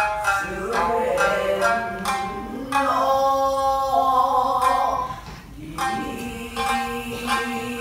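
Music with singing and a pitched instrument playing a changing melody.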